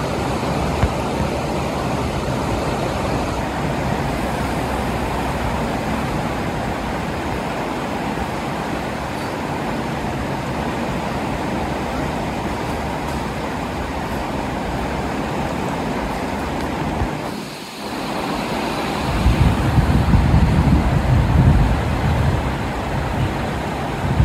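Steady rush of fast-flowing floodwater. A low, uneven rumble joins it from about 19 seconds in.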